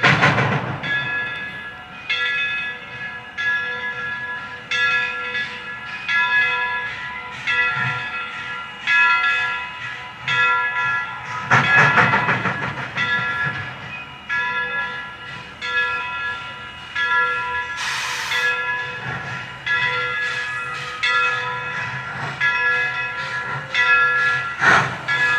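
Locomotive bell ringing steadily, struck about once a second, over the sound of a steam train. There are loud blasts right at the start and around twelve seconds in, and a short sharp hiss of steam about eighteen seconds in.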